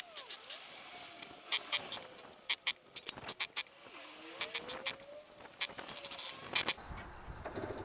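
Clicks and clanks from a 1976 Yamaha V50P moped as it is pedalled over to start it after six months unused. Near the end its 50cc two-stroke engine catches and settles into a steady run.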